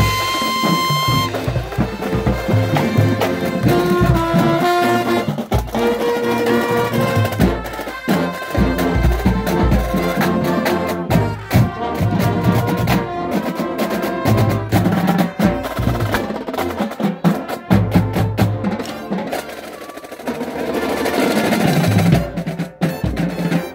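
A drum and bugle corps' brass line and drum line playing loud music together, with chords over snare and drum hits. It opens with a high trumpet note held for about a second before it cuts off.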